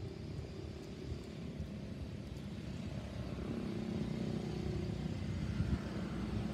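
A motor engine running in the background: a low rumble that slowly grows louder, with a steady hum coming in about halfway through.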